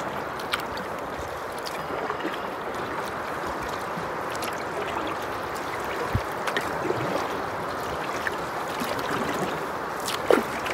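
Fast, swollen river current rushing steadily around a solo canoe, with paddle strokes dipping and knocking now and then and one sharper paddle hit near the end.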